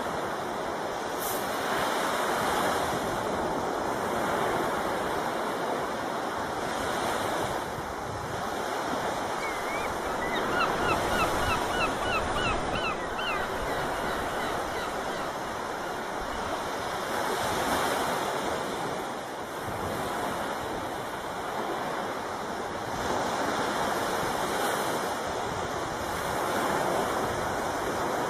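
Sea water rushing along a sailboat's hull, swelling and easing every few seconds, with some wind on the microphone. About ten seconds in comes a short run of quick, high squeaks.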